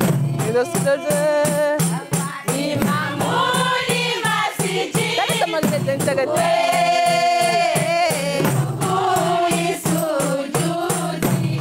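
A women's deba choir singing a Mayotte devotional song together over hand-held frame drums beaten in a fast, even rhythm, about four strokes a second.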